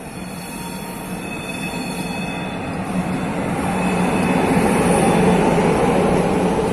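Electric locomotive hauling a passenger train past at close range: a rolling rumble that grows louder as the locomotive and coaches go by, loudest about five seconds in, with a faint high squeal from the wheels.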